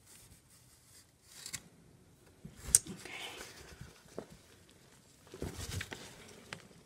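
A gloved hand digging through damp shredded cardboard bedding in a plastic worm bin: irregular bouts of rustling and crinkling. There is a sharp click about three seconds in, and a heavier rustle with low bumps about five and a half seconds in.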